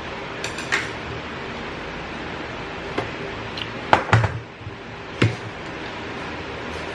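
Eating utensils clinking and knocking against a food container during a meal: a few scattered knocks, the loudest pair about four seconds in and another just after five seconds, over a steady background hum.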